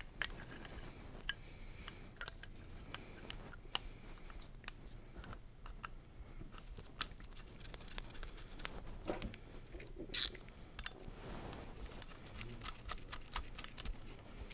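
Small metallic clicks and taps of new brake pads being seated in a motorcycle's front brake caliper and the caliper being fitted back over the disc, with one sharper clink about ten seconds in.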